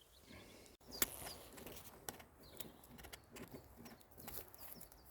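Faint chirps of small wild birds, mixed with scattered clicks and rustles.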